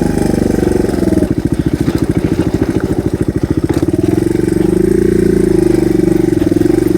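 Single-cylinder dual-sport motorcycle engine running at low revs. About a second in it settles into an even chugging for a few seconds, then steadies with a slightly higher note.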